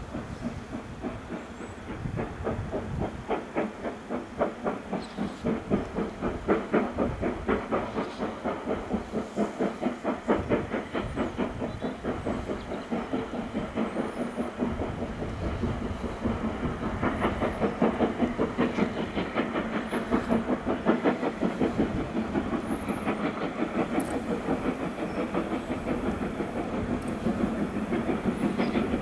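Steam locomotive approaching, its chimney exhaust beating in a fast, even rhythm that grows steadily louder as it nears.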